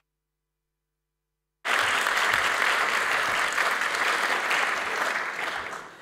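A second and a half of dead silence, then an audience in a large hall applauding, which starts abruptly and dies away near the end.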